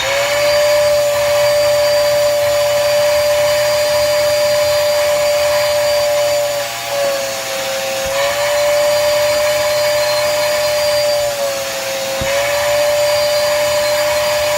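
Koblenz 2.5-gallon, 2.5-horsepower wet/dry vacuum starting up and running with a loud, steady whine while vacuuming a car floor mat. Its pitch dips slightly twice, about seven and about eleven seconds in.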